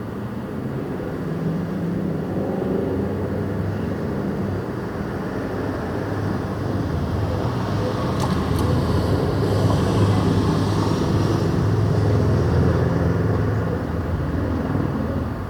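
A motor vehicle passing, its low engine hum building to its loudest about ten seconds in, then fading.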